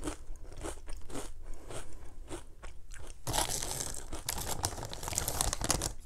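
Close-up crunching of tortilla and potato chips being chewed, about two crunches a second, then the crinkling of a plastic Doritos chip bag as a hand reaches in for another chip.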